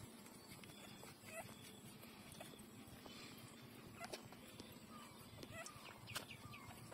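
Faint squeaks and whimpers of week-old puppies nursing: a few short, falling squeaks, several near the end, among soft clicks of suckling.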